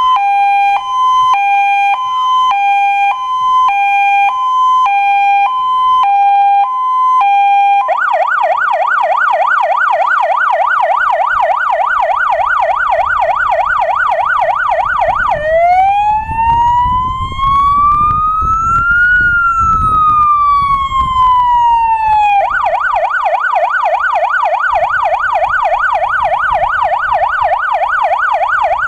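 Zura1120 electronic siren on a Star 266 fire engine, cycling through its tones. It starts with a two-tone hi-lo for about eight seconds, then switches to a rapid yelp. About halfway it makes one slow wail rising and falling, then goes back to the rapid yelp.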